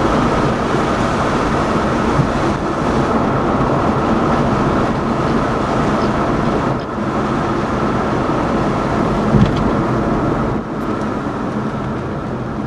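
Steady road and engine noise of a moving car heard from inside the cabin, a dense rushing noise with a faint hum.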